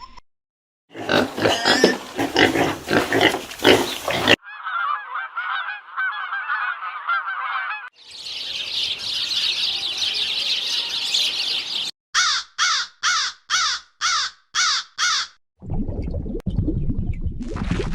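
A string of separate animal-call recordings spliced together: loud honking, bird-like calls first, then two stretches of dense flock chatter, then a run of about seven evenly spaced calls, ending in a low rumbling noise.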